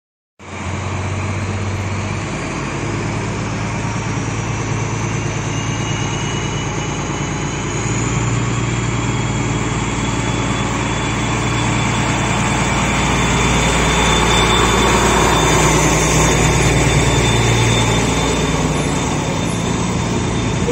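DB class 218 diesel-hydraulic locomotive's MTU TB 11 V12 diesel engine working under load as the train pulls away, a deep steady engine note with a turbocharger whine rising slowly in pitch. It grows louder toward the middle of the departure.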